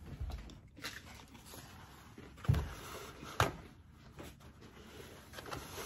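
Soft handling noises at a table: a low thump and a sharp click a second later, among faint rustles as a paper towel is pulled from the roll.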